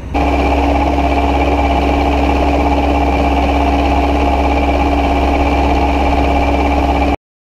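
John Deere 6403 tractor's diesel engine running at a steady speed, with a constant whine over the low engine drone. It cuts off suddenly near the end.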